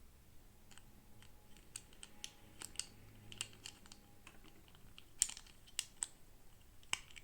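Small plastic toy pieces and packaging being handled: a string of irregular light clicks and taps, the sharpest about five seconds in.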